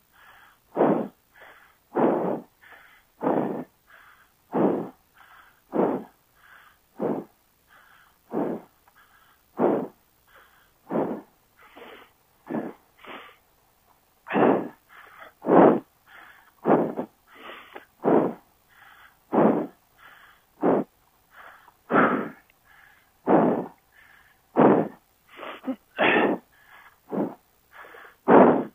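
A person breathing hard close to the microphone: quick, even breaths in and out, about three breath sounds every two seconds, loud and soft in turn. Out of breath from exertion.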